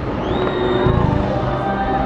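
Music playing, with crowd noise underneath, in a short gap between fireworks bursts.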